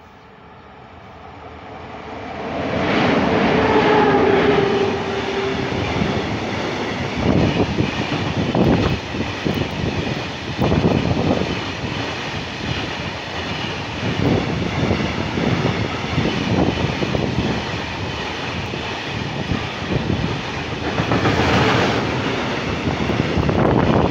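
Freight train passing at speed close by: the locomotive swells in over the first few seconds with a brief steady tone about four seconds in, then a long string of open gondola wagons goes by with a continuous rumble and irregular wheel clatter over the rail joints.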